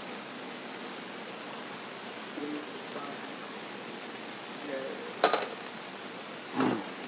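A stainless skillet is set down on the metal grate of a portable gas burner with a sharp, ringing metallic clank about five seconds in, over a steady hiss.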